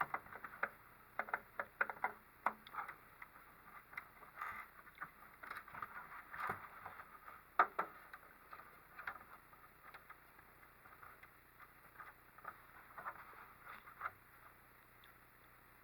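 Irregular light clicks and taps of hand assembly work on the kit 3D printer's hood frame parts, frequent in the first half and sparser later, with one sharper click a little past seven seconds in.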